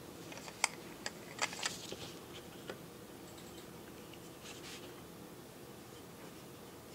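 Small handling sounds: a few sharp light clicks and taps in the first three seconds and a couple of soft scratchy strokes a little past the middle, as a fine paintbrush and fingers work on a hard 3D-printed plastic cage. A faint steady hum runs underneath.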